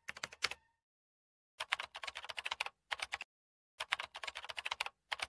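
Computer keyboard typing, rapid key clicks in several short runs separated by brief silent pauses.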